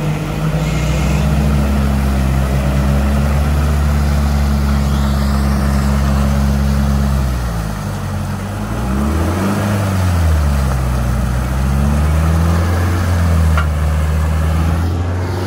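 4x4 engine running at raised revs, steady for most of the time, its pitch dropping and then climbing again about eight to ten seconds in, as a bogged-down off-road vehicle works to get free.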